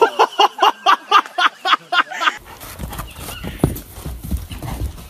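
A person's rapid, rhythmic vocal cries, about five a second, for roughly two seconds. They then give way to a horse bucking and moving on sand: scattered hoof thuds over a low rumble.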